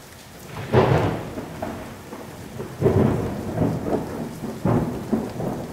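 Thunderstorm: steady rain with three claps of thunder, about a second in, near the three-second mark and near five seconds, each rumbling away over about a second.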